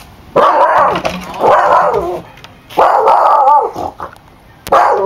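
Miniature Australian shepherd barking, about four loud, drawn-out barks, as a warning at someone at the door it does not recognize.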